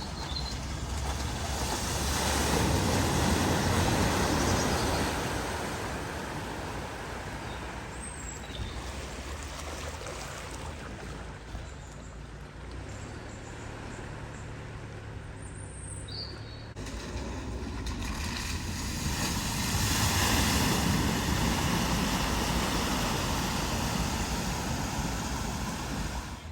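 Car engine running with water rushing and splashing as a car drives through a flooded river ford. The sound swells twice, once early and again near the end.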